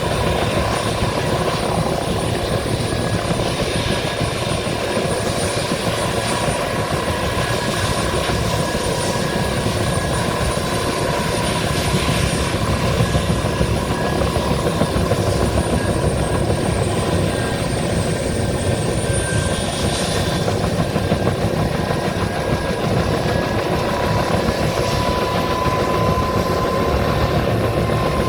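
Bell 205 helicopter running steadily: the fast, even beat of its two-bladed main rotor over a steady turbine whine.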